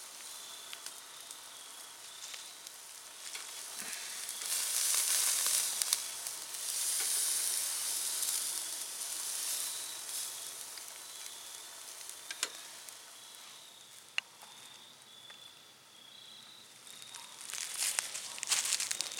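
Flat iron steak sizzling as it sears on a wire grill grate over hot coals. The sizzle swells about five seconds in and eases off later, with a couple of sharp clicks in the second half.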